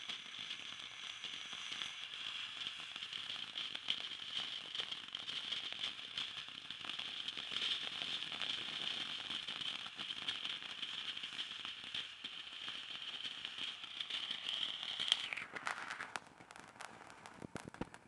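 Backyard firework hissing and crackling steadily for about fifteen seconds, then cutting out abruptly, with a few scattered crackles after it dies.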